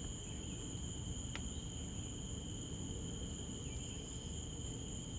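Steady chorus of insects in the woods: two unbroken high-pitched trills that hold on together, over a low steady background hiss.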